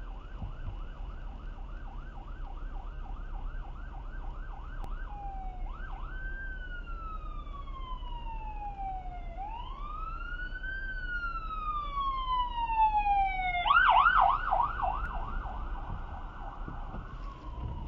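Fire truck's electronic siren: a fast yelp for about five seconds, then a slow wail that rises and falls twice, then the fast yelp again, loudest at that point, over a steady low road rumble.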